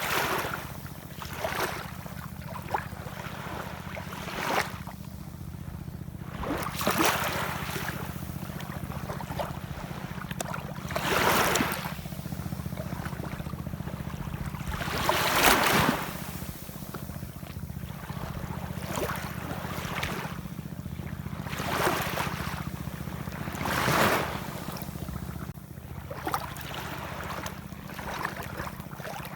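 Ocean waves washing in, a surge of hissing water every few seconds, the strongest about 11, 15 and 24 seconds in, over a steady low rumble.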